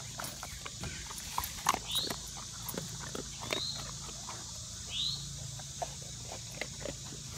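A dog snuffling and chewing with its nose down in leafy ground cover: short irregular clicks and rustles close up. A bird gives a short falling chirp three times.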